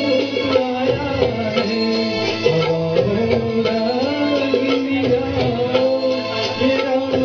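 A man singing a Hindi film song into a microphone over instrumental accompaniment with a steady percussion beat.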